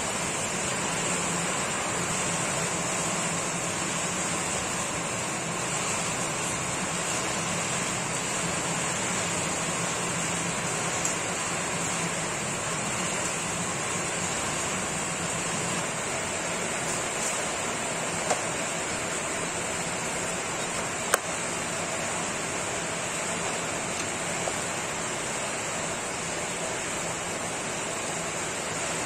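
Sharp EC-8305 vacuum cleaner running steadily, a constant motor-and-airflow rush with a high hiss and a faint low hum, broken only by a few faint ticks.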